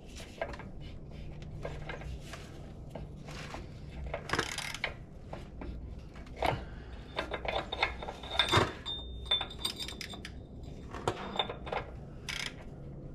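Scattered metal clinks, knocks and rattles of a socket and loose front-hub parts being worked off, with a short metallic ringing about seven seconds in.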